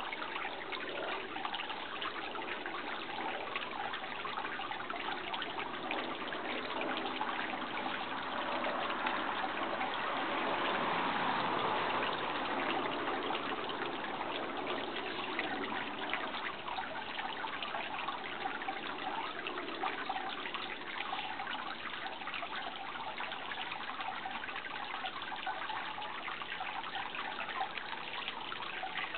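Steady babble of running water, swelling slightly a little before the middle and then settling back.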